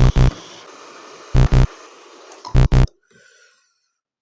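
Electronic music track with a loud doubled bass hit repeating three times, about every 1.3 seconds, over a steady hiss. It cuts off about three seconds in.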